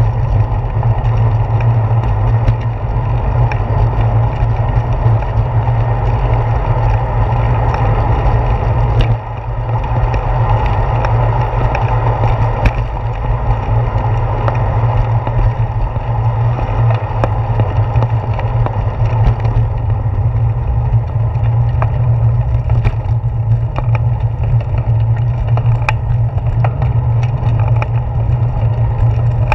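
Riding noise on a bicycle's handlebar-mounted GoPro: a steady low rumble of wind on the microphone and tyres rolling on pavement. It dips briefly about nine seconds in, and a few sharp clicks and knocks come in the second half.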